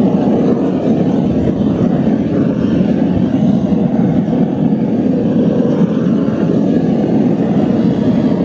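Propane torch burner running steadily, a low, even rushing noise, as its flame is played over the inside of a wooden beehive body to disinfect it.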